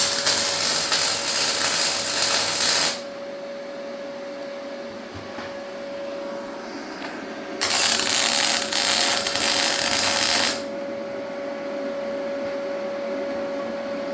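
MIG welder laying two tack welds: two steady hissing spells of about three seconds each, the second starting about halfway through, with a steady hum underneath throughout.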